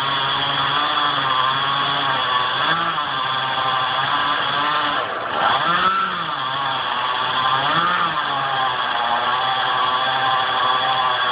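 Chainsaw running continuously, its engine pitch rising and falling several times as the throttle is opened and eased off.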